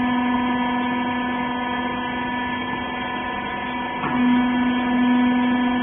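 Industrial rag baler's hydraulic power unit running with a steady hum. There is a brief knock about four seconds in, and after it the hum is a little louder.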